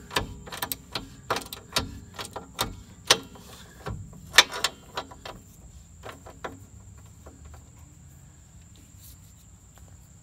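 Socket ratchet clicking in short, irregular strokes as a 16 mm bolt on the rear spring's lower retainer is tightened, with one louder metal knock about four seconds in. The clicking stops after about six and a half seconds.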